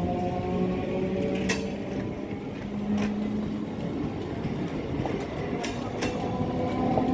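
Electric multiple unit (EMU) local train rolling past: a steady rumble of wheels on rail with a humming tone, broken by a few sharp clicks.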